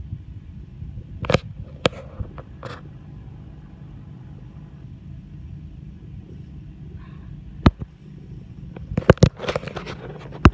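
Knocks and scrapes of a phone camera being handled: three sharp knocks in the first few seconds, one past the middle, and a cluster near the end as the phone is lowered. A steady low rumble runs underneath.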